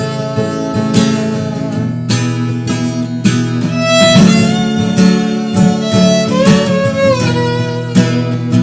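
Instrumental break of a song: acoustic guitar strumming steady chords, with a lead melody of held notes sliding from one pitch to the next over it during the second half.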